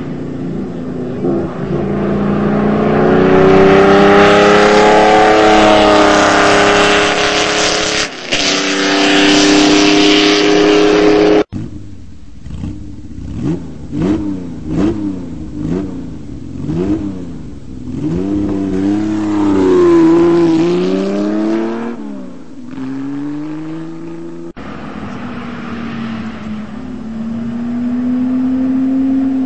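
Car engines revving in a string of cut-together clips: a loud engine pulling up through the revs, then a run of quick rev blips that rise and fall about once a second, and, near the end, a steadier engine note climbing slowly.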